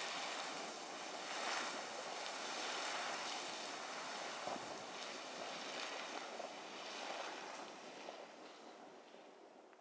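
Geyser erupting: a steady rushing hiss of water and steam, fading out over the last couple of seconds.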